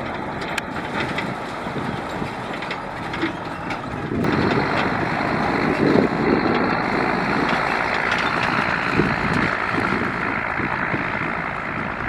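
Heavy construction vehicle running, a steady engine and machinery noise that gets louder about four seconds in.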